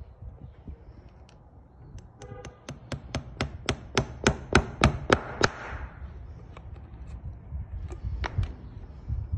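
Farrier's driving hammer tapping horseshoe nails through an aluminum shoe into the hoof wall: a quick run of about four taps a second that grows louder, the first few ringing, then two more taps near the end.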